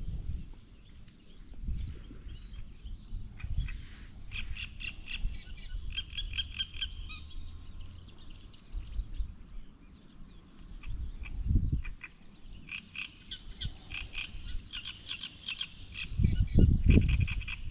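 Frogs calling in rapid pulsed trills, in two spells, over a low rumble that swells loudest near the end.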